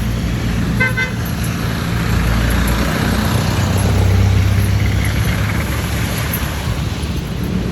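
Street traffic with a vehicle engine running steadily, and a short car horn toot about a second in, a fainter toot near the middle.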